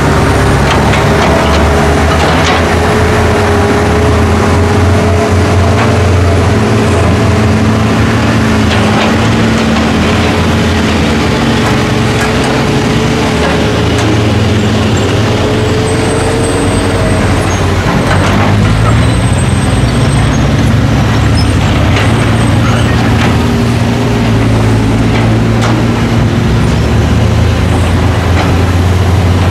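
Diesel engines of Caterpillar crawler excavators and a ten-wheel dump truck working together: a loud, steady drone with whining tones that drift slightly in pitch as the machines dig and load, and a few faint knocks.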